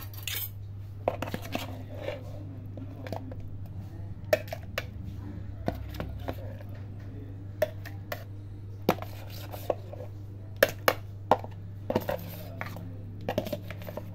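A kitchen knife scraping and tapping chunks of avocado off into a steel mixer jar, with irregular sharp clinks and knocks of the blade against the metal rim. A steady low hum runs underneath.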